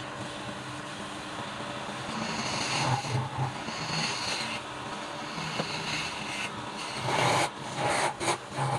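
A woodworking machine running steadily, with two louder stretches of a tool cutting into wood: one about two seconds in, and a choppier one near the end.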